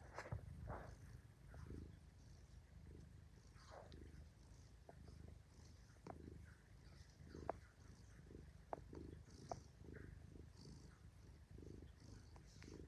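Domestic cat purring steadily and faintly while being stroked on the head, a sign of contentment, with a few faint clicks in the middle of the stretch.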